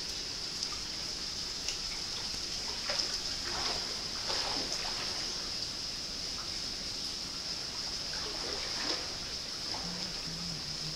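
Hot-spring water running into a rock-lined outdoor bath: a steady watery hiss with scattered small trickles and splashes, a little busier between about three and five seconds in.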